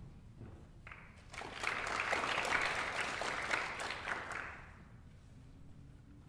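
Audience applauding: a short round of clapping that starts about a second in, is loudest in the middle and dies away after about four and a half seconds.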